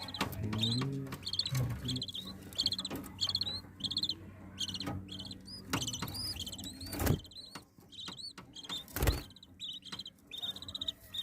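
Lovebirds chirping: short high calls repeated about every half second, with two knocks or thumps partway through, the second one louder.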